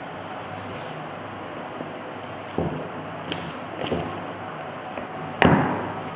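Cardboard phone box and its torn plastic shrink wrap being handled, with the outer sleeve slid off: a few sharp crinkles and clicks from about two and a half seconds in, and a louder crackling knock near the end, over a steady low hum.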